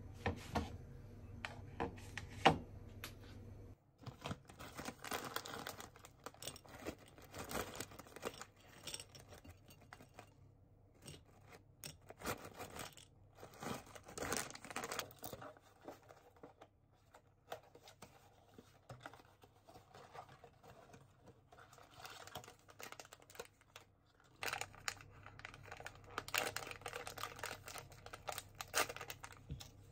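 Handling of packaging: a ceramic mug knocks down onto a wooden tray a few times near the start, then a snack bag rustles and crinkles as its contents are tipped onto a glass plate. Near the end, an instant-coffee stick pack crinkles as it is torn open.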